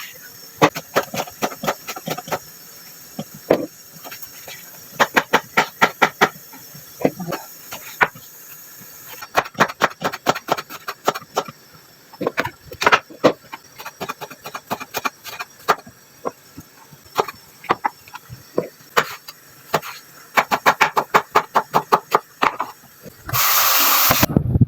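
A knife chopping on a cutting board in quick runs of strokes with short pauses between. Near the end there is a loud hissing burst lasting about a second.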